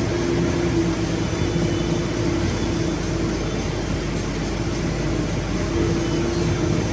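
A vehicle running steadily, with a low rumble and a steady hum that fades in the middle and comes back near the end.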